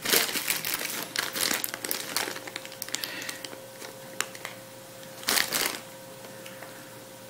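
Pipe tobacco sample packets crinkling as they are handled, with dense crackles for the first few seconds and a short louder crinkle about five seconds in.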